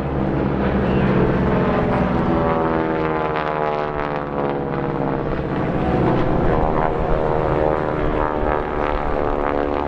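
North American T-6 Harvard's Pratt & Whitney R-1340 Wasp radial engine and propeller passing over in flight: a loud, steady drone whose pitch slides gradually lower as it goes by.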